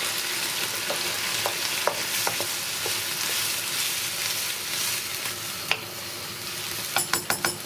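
Vegetables and beans sizzling steadily in a wok with a little water as a wooden spoon stirs them, knocking against the pan now and then, with a quick run of clicks near the end.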